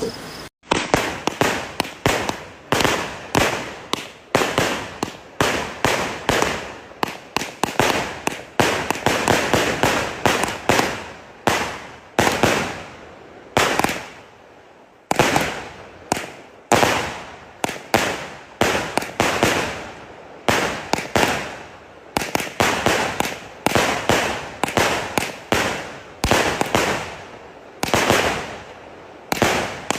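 Malaysian 'machine gun' firecrackers going off in long rapid volleys of sharp cracks, the bangs bunching into bursts about once a second, with a short lull around the middle.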